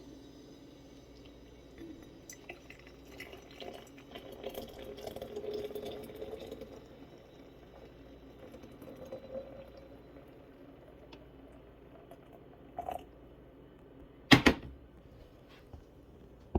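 Water poured out of a cast-iron tetsubin kettle, a few seconds of splashing liquid, with faint handling clicks. A sharp knock about fourteen seconds in is the loudest sound.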